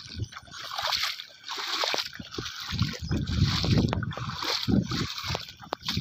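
Bare feet wading through shallow rainwater over soft mud, a splash with each step, about one a second.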